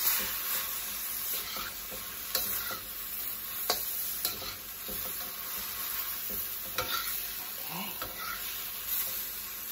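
Rice noodles, broccoli and tofu sizzling in a hot wok while a slotted metal spatula stirs and scrapes through them. A few sharp taps of the spatula against the pan stand out over the steady sizzle.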